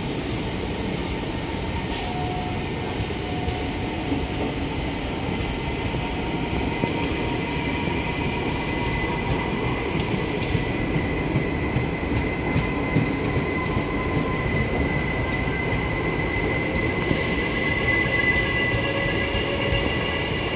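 Indian Railways passenger coaches rolling past along the platform: a steady rumble of steel wheels on rail with light clicks. A faint, thin, high wheel squeal grows stronger in the second half.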